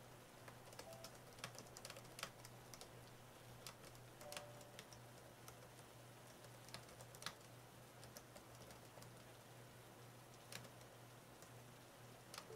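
Faint, irregular keystrokes on an AlphaSmart portable word processor's keyboard, typed at a steady writing pace with a few louder key strikes.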